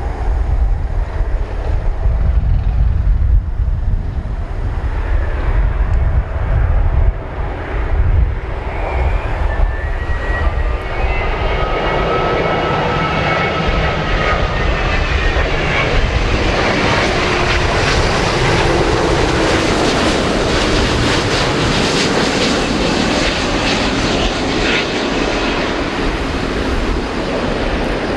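Airbus A330-900neo's Rolls-Royce Trent 7000 turbofan engines on final approach to land, passing the listener. A low rumble at first, then the jet noise swells into a loud roar with whining tones that slide downward in pitch, loudest a little past the middle.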